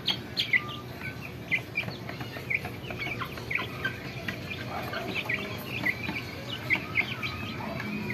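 A flock of month-old Rhode Island Red and Black Australorp chicks peeping: many short, high, downward-sliding peeps, several a second, overlapping throughout.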